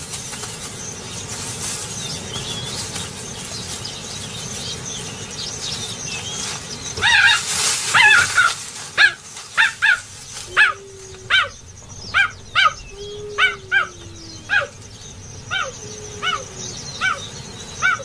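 Cheetah chirping: a run of short, high calls, each falling in pitch, starting about seven seconds in and repeating about once or twice a second over a steady hiss. It is the bird-like contact call that cheetahs use to keep in touch with family members.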